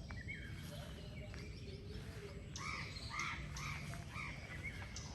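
Bird calling outdoors: a run of about five evenly spaced calls a little past halfway, with a few fainter calls before it, over a steady low rumble.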